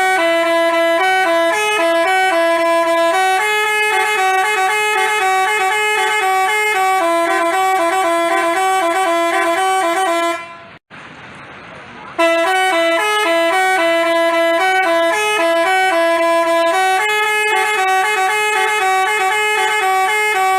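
Telolet 'basuri' musical horn playing a tune of stepping notes. It breaks off for about a second and a half just past ten seconds in, then starts the tune again.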